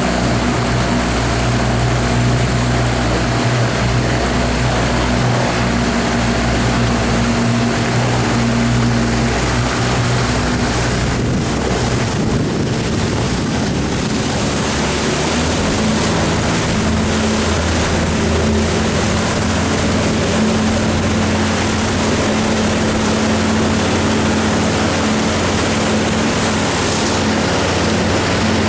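Jet-drive RIB boat with a BRP Sea-Doo 100 hp engine running under way: a steady engine note over the rush of water and wind. The engine note changes about halfway through.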